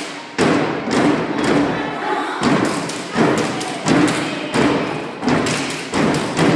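Stepping: a fraternity step team stomping in unison on a portable stage riser, a steady rhythm of heavy, echoing stomps landing a little more than once a second.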